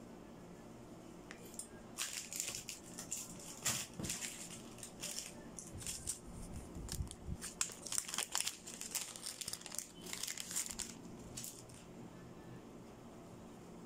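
A small packet of product packaging being handled and opened, crinkling in irregular bursts of sharp crackles that start about two seconds in and die away near the end.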